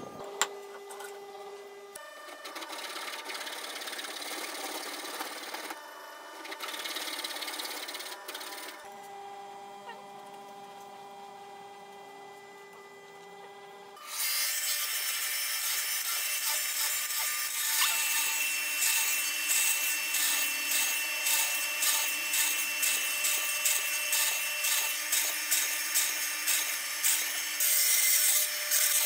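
After a quieter stretch, a hollow-chisel mortiser starts cutting about halfway through: the motor runs loudly while the square chisel and auger bore into the pine in repeated plunges, more than one a second.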